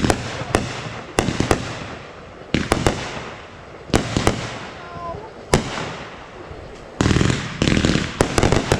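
Fireworks going off: a string of sharp bangs with echoing tails, about one every half second to second. About seven seconds in they give way to a dense, rapid run of cracks.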